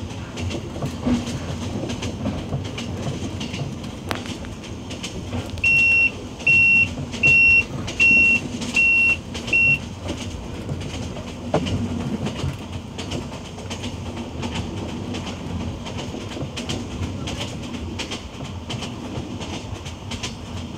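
Passenger train running along the track, heard from on board: a steady rumble and rattle of wheels on rails, with occasional clicks. About six seconds in, a high electronic beep sounds six times over about four seconds, each beep short and evenly spaced.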